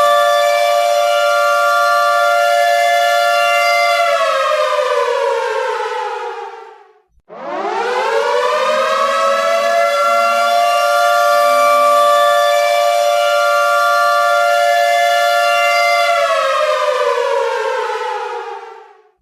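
Air-raid siren wailing: a steady two-note tone slides down in pitch and dies away about seven seconds in, then climbs straight back up, holds, and falls away again near the end.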